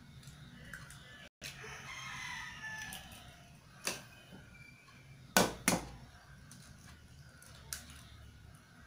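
Eggs being cracked against the rim of a glass mixing bowl: sharp taps about four seconds in, a louder pair about a second later, and another near the end. A rooster crows faintly, with a falling call, around two seconds in.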